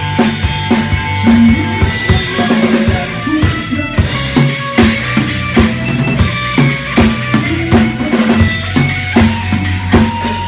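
Music with a steady drum-kit beat, kick and snare, over a deep sustained bass line, played loud through a sound system being tested.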